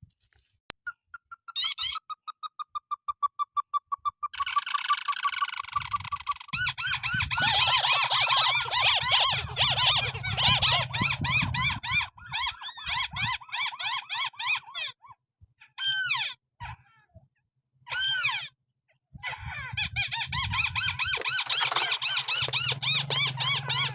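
Calls of a rail-family rice-field bird: a fast series of pulsed notes, then long runs of rapidly repeated harsh calls, broken by a few short pauses, over a low hum.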